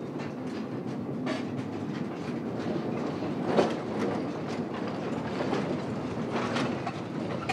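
Small mine locomotive hauling ore cars along a narrow-gauge track, with a steady rumble of rolling wheels and irregular metal clanks and rattles from the wagons. The loudest clank comes about three and a half seconds in.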